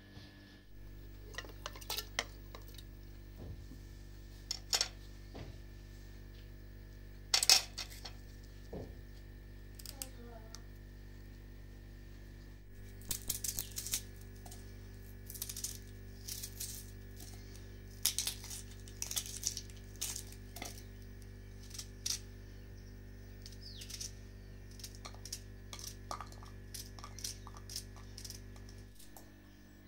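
Kitchen handwork: scattered clinks, taps and knife clicks as garlic is peeled and cut with a small knife over china bowls and plates, the loudest clink about seven seconds in, over a steady low hum.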